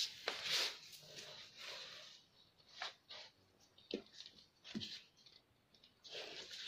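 Hands handling a sheet of pattern paper and laying a cloth measuring tape across it: faint, scattered rustles and light scrapes of paper and tape, with a short quiet gap near the end.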